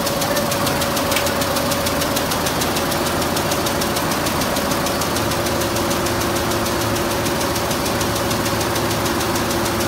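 Multi-needle quilting machine running, its row of needles stitching with a rapid, even ticking over a steady mechanical hum; a second, lower hum joins about halfway through.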